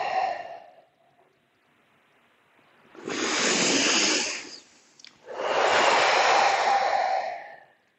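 A person breathing deeply and audibly close to the microphone during slow tai chi movements: one breath tails off in the first second, then two long breaths follow, about three and five seconds in.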